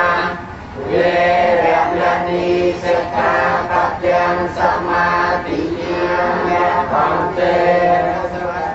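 A group of voices chanting a Buddhist prayer in unison, in long drawn-out notes, with a short pause for breath about half a second in.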